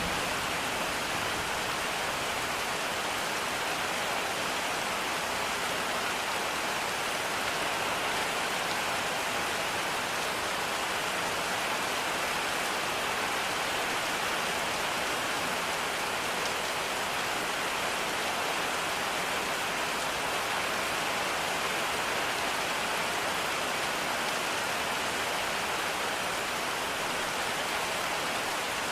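Steady, even rain falling, a continuous hiss that holds at one level throughout.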